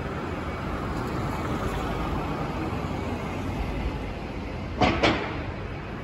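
Steady city street noise with road traffic running past, and two short sharp sounds in quick succession about five seconds in.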